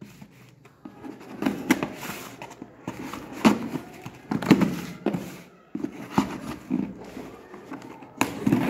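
Box cutter slitting the packing tape on a cardboard parcel, with irregular scrapes, rustling and light knocks as the box is held and turned.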